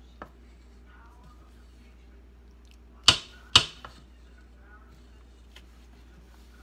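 Two sharp knocks about half a second apart a little past the middle, with a faint click just after the start, over a low steady hum.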